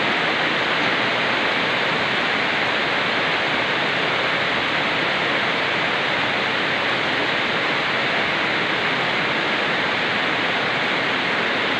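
Steady, even hiss of noise that does not change, with nothing else standing out.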